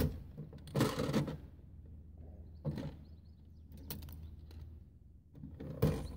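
A handful of separate knocks and rustles of handling, the loudest near the end, over a steady low hum.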